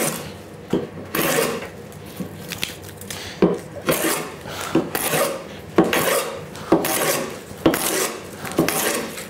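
Scrub plane cutting along the edge of a board in repeated strokes, about one a second, each a short rasping hiss of the iron taking off a thick curling shaving.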